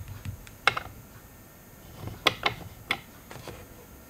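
Mechanical clicks from the plastic focus mechanism of a G1200 digital microscope being adjusted: four sharp clicks, one under a second in and three close together a little past two seconds.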